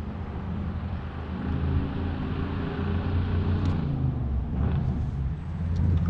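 A motor running with a steady low hum, with a hiss that swells and fades from about one to four seconds in.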